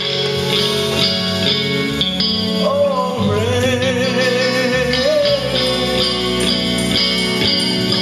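Live gospel worship song: a man singing over electric guitar. A held, sliding vocal line rises and falls from about two and a half seconds in to around five and a half.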